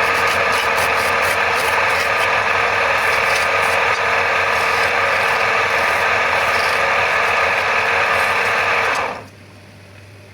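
A turning tool cutting into a wooden bed leg spinning on a wood lathe: a loud, steady scraping over the low hum of the lathe's motor. The cutting stops about nine seconds in, leaving only the motor hum.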